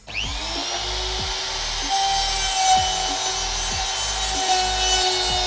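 Electric wood trimmer/router (CAZAR CZ-TVS036) switching on, its whine rising quickly as the motor spins up, then running steadily as the bit cuts into 6 mm plywood. Background music plays underneath.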